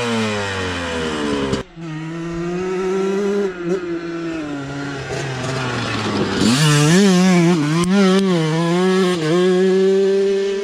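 Honda CR125R's 125cc single-cylinder two-stroke engine revving. The revs fall off in the first second and a half, then hold with small wavers, and climb higher about six and a half seconds in, staying up with the throttle working.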